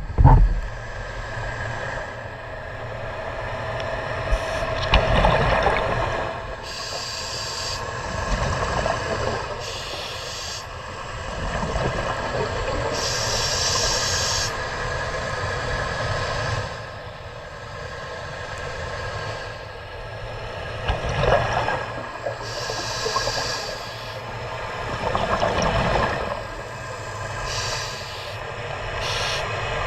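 Scuba diver breathing through a regulator underwater: a hissing breath in every few seconds, alternating with the rushing gurgle of exhaled bubbles, over a low steady rumble.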